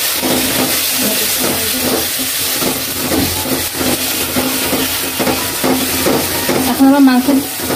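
Masala paste of ground ginger, garlic, green chilli and powdered spices frying in oil in a karahi, stirred and scraped round the pan with a spatula: a steady sizzle with repeated scraping strokes. This is the spices being fried down (kasha) before the meat goes in.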